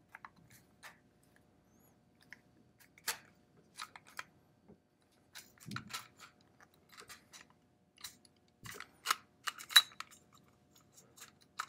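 Scattered small metallic clicks and scrapes from the White-Merrill .45 pistol's slide and barrel as they are worked forward off the frame during disassembly, with the sharpest click a little before the end. The slide assembly is fiddly to free, so it goes in several tries.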